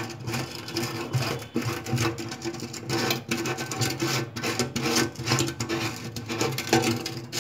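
Stainless steel kitchen sink strainer being unscrewed by hand: irregular scraping and clicking of metal on metal as its centre screw and nut turn, over a steady low hum.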